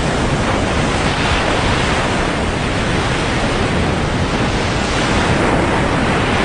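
Ocean surf breaking and washing onto a sandy beach: a steady, loud rush of waves.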